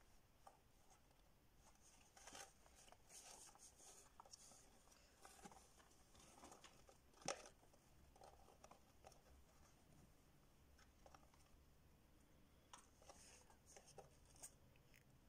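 Faint rustling, crinkling and small scratches of pet rats shifting about in their fabric hammock and wood-shaving bedding, with one sharper click about seven seconds in.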